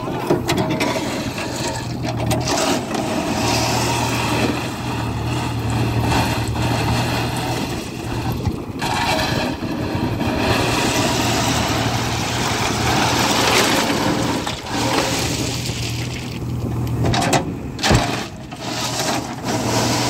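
JCB 3DX backhoe loader's diesel engine running steadily under load as the hydraulic backhoe arm works, with crushed limestone rattling and clattering out of the bucket into the truck bed.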